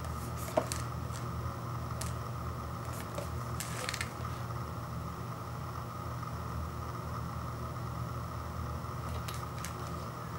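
Instant noodle cup being turned over in the hands: a few light taps, rubs and scrapes of fingers on the cup, the sharpest a tap about half a second in, over a steady low hum.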